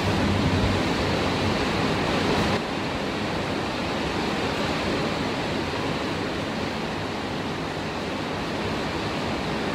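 Heavy rain pouring, a steady dense rushing hiss with no breaks; it drops slightly in level about two and a half seconds in.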